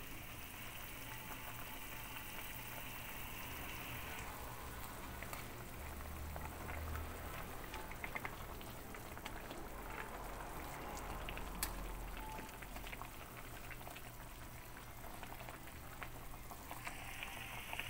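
Alugbati (Malabar spinach) leaves bubbling in a shallow pan of boiling water, a steady crackling simmer. In the middle stretch, scattered clicks and scrapes come from a metal spoon stirring the leaves against the pan.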